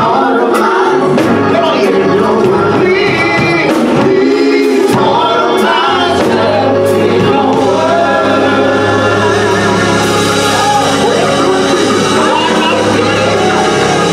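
Live gospel music: a man sings into a microphone over organ, electric keyboard and drums. Cymbal strokes ring through the first few seconds, and a held low bass note comes in about six seconds in.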